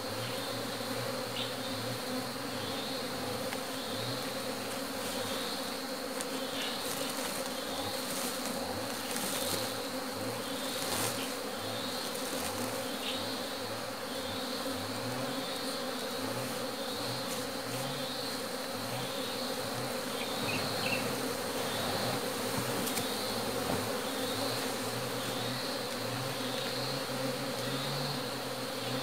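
A mass of honey bees buzzing steadily around a hollow-log hive while colonies are being merged into it from a sack of caught bees.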